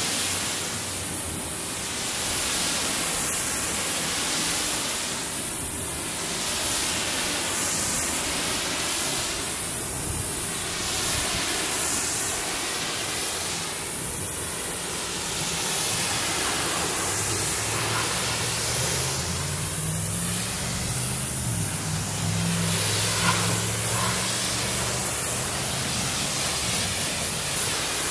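Pressure-washer spray rinsing an RV's painted rear panel: a steady, loud hiss of water hitting the wall. Between about 17 and 22 seconds a low droning hum rises and falls underneath.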